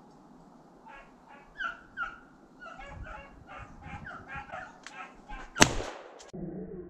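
Hunting dogs barking and yelping as they run a snowshoe hare, starting about a second in, then a single loud shotgun shot about five and a half seconds in.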